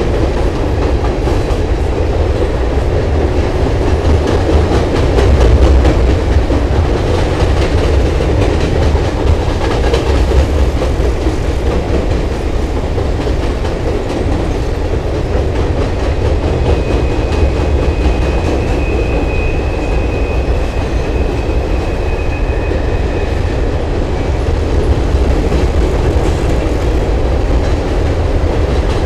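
Norfolk Southern freight train's cars rolling steadily across a steel girder bridge: a continuous rumble of wheels on rail with clickety-clack, and a faint high squeal for several seconds past the middle.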